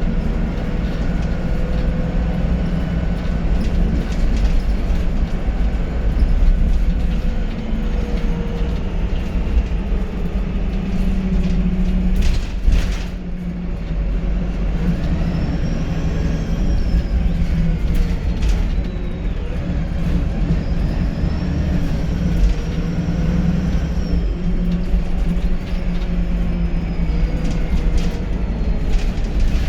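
VDL SB200 bus's diesel engine running steadily, with a quiet turbo whistle rising and falling faintly above it. The sound dips briefly about halfway through.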